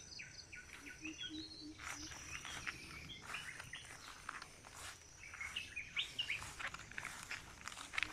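Someone pushing on foot through overgrown brush, with leaves and twigs rustling and crackling irregularly. Birds chirp now and then.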